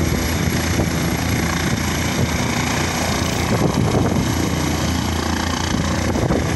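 Air ambulance helicopter hovering low, its rotor and turbine engines making a loud, steady noise.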